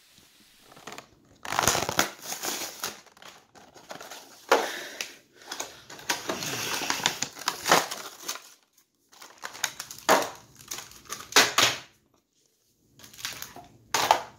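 Action-figure packaging being torn open by hand: cardboard card and clear plastic blister tray crackling and crumpling in several bursts with short pauses between them.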